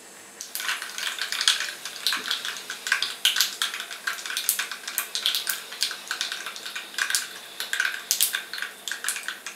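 Mustard seeds crackling and popping in hot oil in a small nonstick pan, a dense, irregular run of sharp pops starting about half a second in: the seeds spluttering as the oil tempers them.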